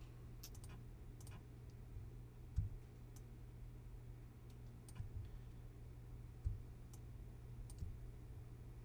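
Scattered, irregular clicks of a computer mouse and keyboard, over a steady low hum.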